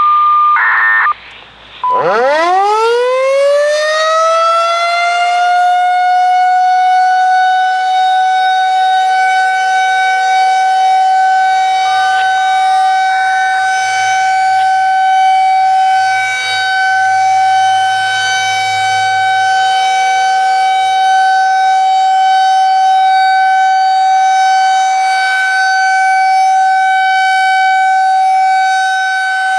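Federal 2001-SRN rotating civil-defense siren winding up from a standstill about two seconds in, its pitch climbing steeply and levelling off into a steady, loud single-tone wail that holds without winding down, its volume dipping slightly every several seconds. It is preceded by a short electronic tone and a brief warbling data burst, the FSK activation signal.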